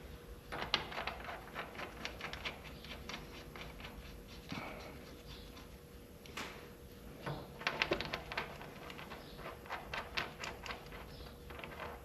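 Scattered light clicks and clinks of hand tools at work on an engine, in quick runs about a second in and again from around eight seconds, over a faint steady hum.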